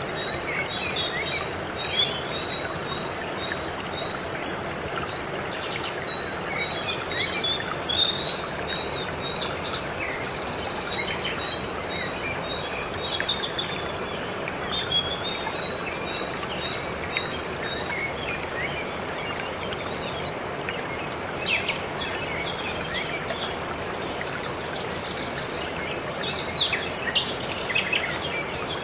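Steady rush of a waterfall with small birds chirping and trilling over it, including quick strings of short high notes repeated several times.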